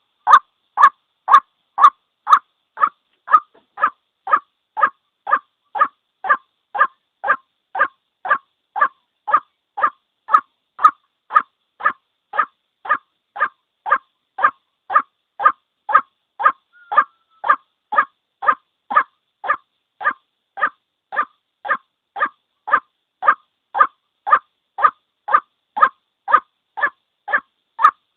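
White-breasted waterhen call: one short note repeated steadily about twice a second, with clean gaps between the notes. It is a looped single-bird lure call of the kind played to draw waterhens into snares.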